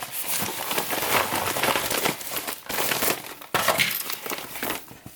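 Crinkling and rustling of parcel packaging being handled and unwrapped by hand: a dense crackle, briefly broken about three and a half seconds in.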